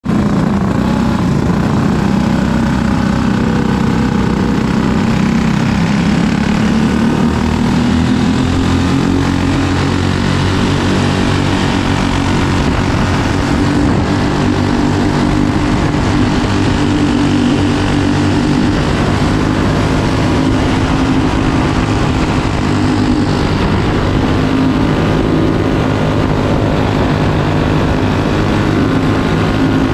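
Racing kart's flathead single-cylinder engine, heard on board, running hard through laps. Its pitch rises and falls as the driver lifts and gets back on the throttle through the corners, with other karts' engines running close by.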